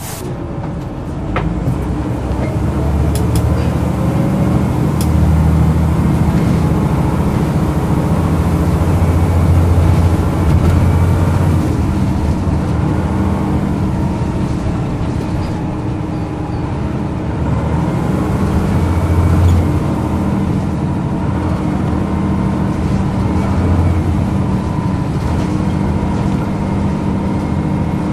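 Volvo B10B single-deck bus's diesel engine heard from inside the saloon as the bus drives along, the engine note climbing in the first few seconds as it pulls away and then rising and easing as it accelerates and lifts off.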